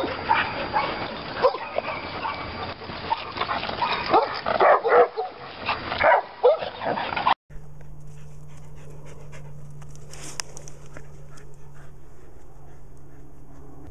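Dogs barking repeatedly in short sharp barks for about seven seconds. The sound then cuts to a much quieter, steady low hum with faint rustling.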